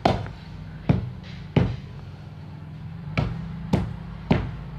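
A metal tool knocking and prodding into a rotten, termite-eaten ulin (Bornean ironwood) log: about six sharp knocks at uneven intervals, over a steady low hum.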